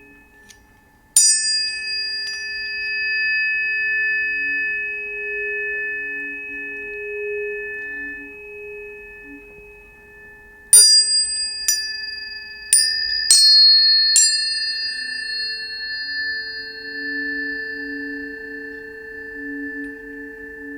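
Tuning forks struck and left ringing: two taps about a second in, then a run of five more from about eleven seconds, each a sharp metallic tap followed by long, steady high tones that overlap and slowly fade. A low wavering hum sits underneath throughout.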